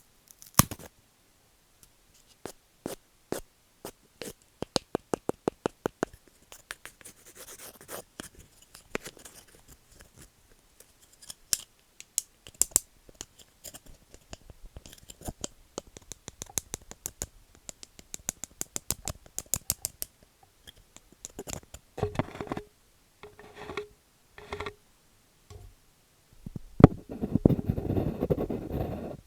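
Wooden objects tapped, clicked and scratched close to the microphone: single sharp taps and quick runs of rapid taps, with scratching between them. Near the end comes a dense stretch of rubbing or scraping.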